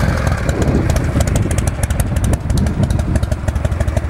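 S&S shovelhead V-twin of a hardtail bobber motorcycle idling with an even beat of firing pulses, run without a warm-up, and sounding good and tight.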